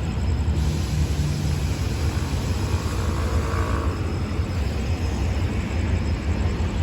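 Hitachi diesel-electric locomotive idling with a steady low rumble, standing at a red signal.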